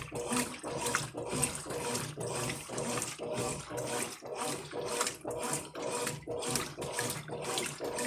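Brastemp Ative 11 kg washing machine agitating a load of towels in water during the rinse: the water sloshes in even, rhythmic surges, about three a second, over a faint steady hum.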